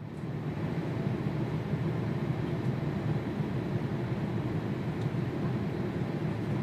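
Steady low rumble of distant jet airliner engines, fading in at the very start and then holding level.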